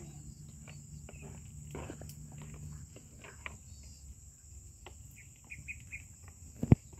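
Steady high-pitched chirring of insects, with soft scattered rustles and one sharp knock near the end.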